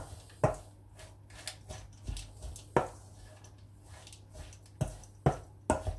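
Wooden spoon stirring a thick oat and carrot flapjack mixture in a stainless steel mixing bowl, with soft scraping and about five sharp, irregular knocks of the spoon against the bowl, three of them close together near the end.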